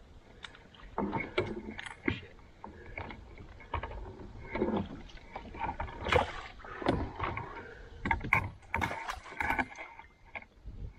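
Water sloshing at the side of a plastic fishing kayak, with irregular knocks and rattles of gear against the hull, as a caught bass is held in the lake water to revive it.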